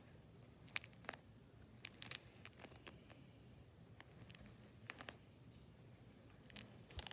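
Faint, scattered clicks and small crackles, a few at a time and unevenly spaced, from a slime-filled dimple popper fidget toy being squished.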